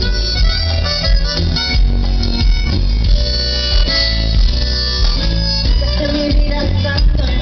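Live Tejano band playing amplified through a festival PA, heard from the crowd: heavy bass, drums keeping a steady beat, with guitar and keyboards on top.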